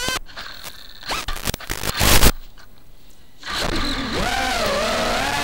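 FPV racing quadcopter's brushless motors in crash-flip (turtle) mode: short stutters and a loud brief burst of propeller noise as the upside-down drone is flipped over. About three and a half seconds in, the motors spin up into a steady whine whose pitch rises and falls with throttle as the drone takes off again.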